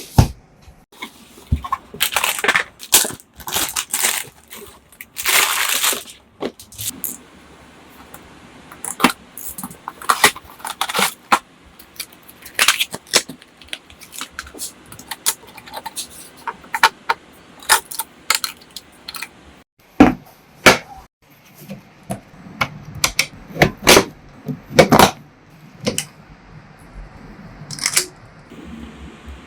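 Irregular clicks, clacks and rattles of computer parts and packaging being handled during a PC build, with a few louder knocks.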